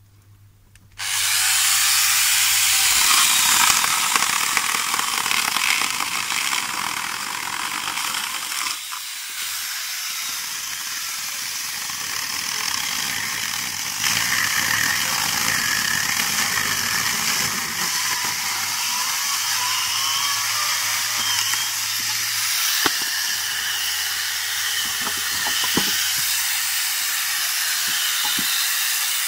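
Electric angle grinder fitted with a small chainsaw attachment, its motor switched on about a second in and running at high speed as the chain cuts through branches, easing briefly around nine seconds.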